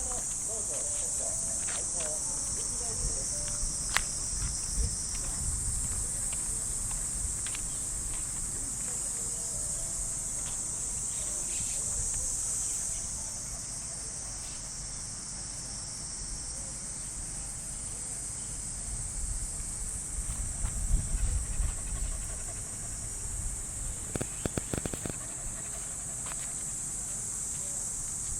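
Chorus of cicadas droning steadily in a high, continuous buzz, with uneven low rumbling underneath and a few soft taps near the end.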